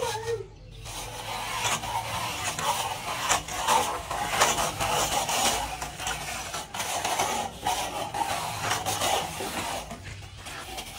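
A straightedge scraped along a wall of wet cement render, levelling the plaster in uneven strokes.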